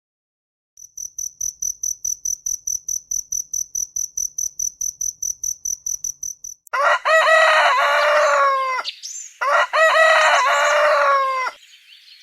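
A cricket chirps steadily in short high pulses, about five a second. Then a rooster crows twice, two long loud crows with a short break between them.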